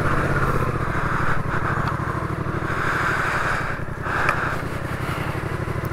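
Motorcycle engine running at low revs under load, a steady, even chug as the bike pulls up a steep dirt hill.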